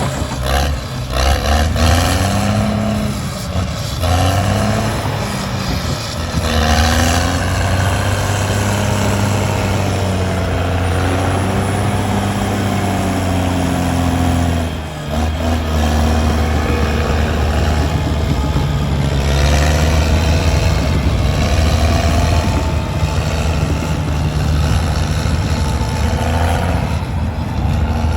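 Heavy diesel engine working hard, its pitch rising and falling as it revs, with a brief drop about halfway through.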